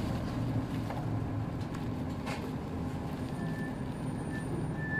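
Hino 2DG-HX9JLCE (Hino Poncho) city bus's diesel engine running with a steady low hum, heard from inside the bus, with a few faint clicks and rattles.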